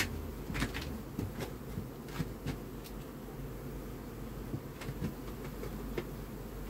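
Honeybees humming steadily from an opened hive, with a run of short sharp clicks and scrapes as a hive tool pries the first frame loose, most of them in the first few seconds.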